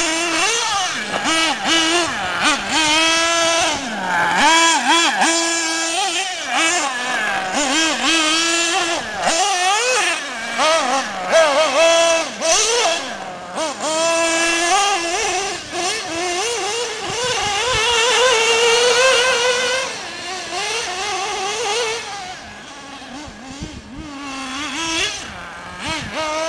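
Mugen MBX5T nitro RC truggy's small glow engine revving up and down with the throttle, its high pitch rising and falling every second or so, and growing fainter for the last few seconds.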